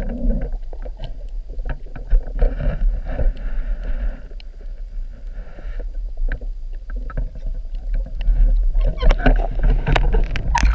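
Water moving against a camera held underwater: a steady low rumble with scattered clicks and crackles, growing louder near the end as the camera is moved about just below the surface.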